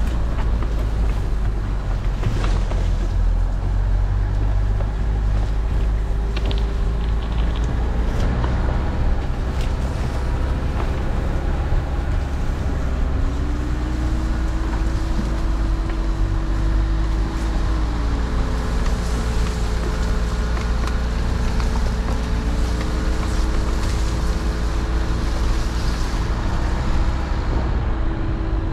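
Dacia Duster driving along a green lane, a heavy steady rumble of engine and tyres. The engine note climbs and falls back twice as the car speeds up and eases off.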